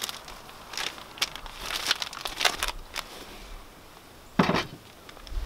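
Rustling and crinkling of a chemical protective suit and gear as a rifle is handled and wiped down with a decontamination wipe, in short irregular scuffs. One brief, louder thud about four and a half seconds in.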